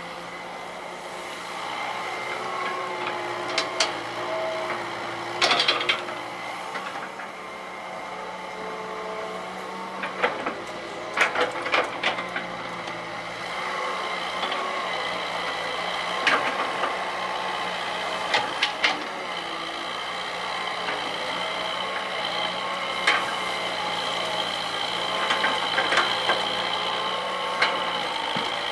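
Hitachi EX120 hydraulic excavator's diesel engine working under load with a high hydraulic whine that steps up in pitch about halfway, while the arm and bucket dig soil. Sharp clanks from the arm and bucket come now and then, most often in the second half.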